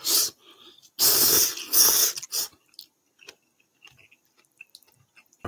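A person slurping ramen noodles: three loud, noisy slurps in the first two seconds or so, then quiet chewing with small clicks and a short sharp click near the end.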